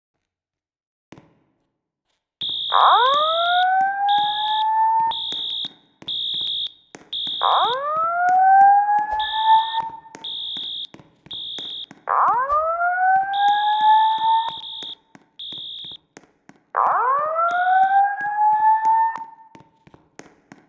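Building fire alarm sounding a slow whoop tone: four rising sweeps, each lasting a couple of seconds, starting a couple of seconds in. A high-pitched steady beep pulses on and off alongside. It is the evacuation signal that comes before the spoken evacuation message.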